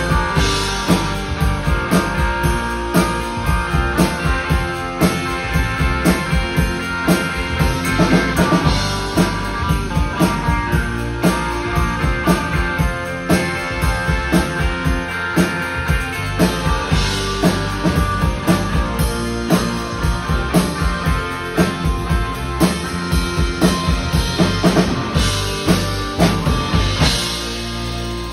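Live rock band playing an instrumental passage: a steady drum kit beat with electric guitars and keyboards. About a second before the end the drums stop and a final chord rings on.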